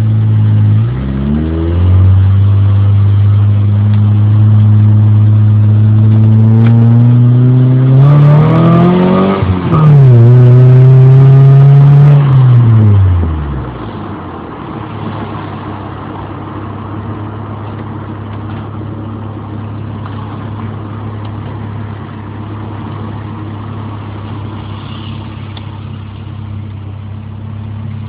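Ford Escort GT's 1.8-litre twin-cam four-cylinder, breathing through a cone air filter and a Tsudo muffler, revs up slowly through a long pull and drops sharply as it shifts. It revs again briefly, then falls back to a steady, quieter drone. The lazy climb in revs is the "breathing too much" fault, which the owner puts down to the K-code hybrid vane air meter fitted at the time.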